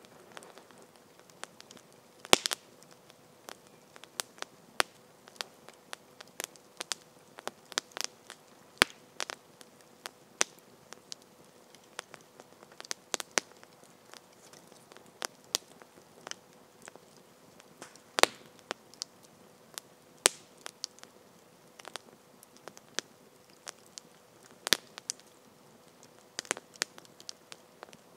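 Campfire crackling: irregular sharp snaps and pops from the burning wood, with a few louder pops scattered through, the loudest about two seconds in.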